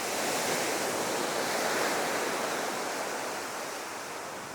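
Ocean surf: a wave breaking and washing up the beach, a wide rushing hiss that swells and then slowly fades toward the end.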